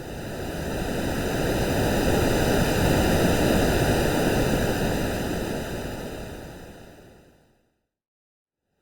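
Synthetic ocean-wave sound: one swell of rushing noise that builds over about three seconds and then fades away, falling silent about a second before the end as the next swell begins to rise.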